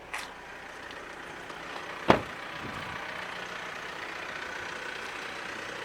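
A single sharp thump about two seconds in, then a steady vehicle hum.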